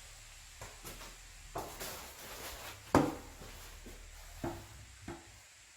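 A string of irregular knocks and clicks, the loudest about three seconds in, a few of the later ones leaving a short ringing tone.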